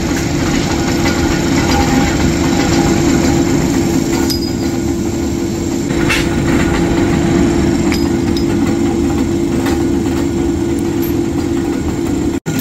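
Belt-driven flywheel power press and its electric drive motor running steadily: a continuous loud machine hum with a couple of light clicks.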